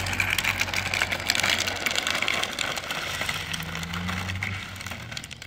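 Hard plastic rear wheels of a drift trike sliding and grinding across rough asphalt, a crackling scrape that fades as the trike moves away.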